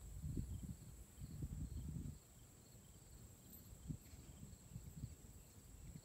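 Low rumbling noise on the phone's microphone, coming in uneven gusts that are strongest in the first two seconds, with faint insect chirping behind it.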